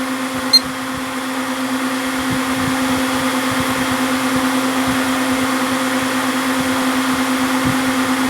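Desktop PC's fans and water-cooling pump running with a steady hum and whir while the machine boots, slightly louder after about two seconds. A brief high blip about half a second in.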